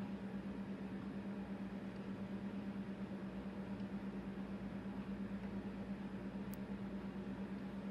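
Steady electrical hum, one low tone over a faint hiss, with a brief high tick about six and a half seconds in.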